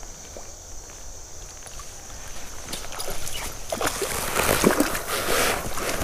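Water splashing and sloshing, building from about three seconds in and loudest near the end, as a hooked brown trout is brought in and landed. A steady cricket trill runs underneath.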